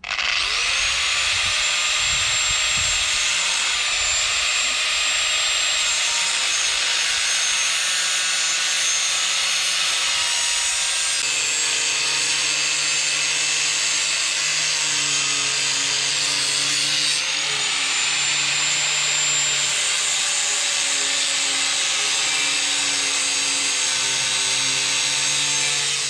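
Corded angle grinder cutting through stainless steel bimini frame tubing: a steady high-pitched motor whine over harsh cutting noise. It spins up at the start and spins back up about two-thirds of the way through.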